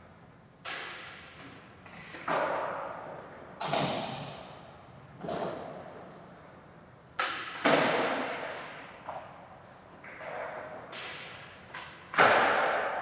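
Skateboard on hard ground: a series of sudden knocks and clacks, roughly one every one to two seconds, each trailing off in a fading rolling rumble. The loudest hit comes near the end.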